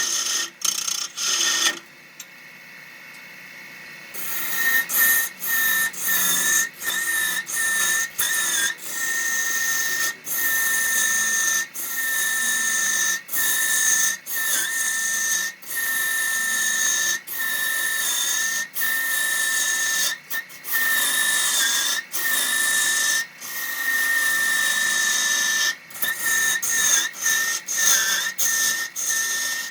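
Wood lathe running: a steady high whine over a hiss, the whine dipping briefly in pitch now and then, broken by many short sudden gaps, with a quieter stretch about two seconds in.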